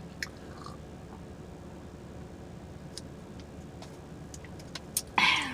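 Steady low hum inside a car's cabin, with a few faint mouth clicks from chewing. Near the end, a short loud vocal sound falling in pitch.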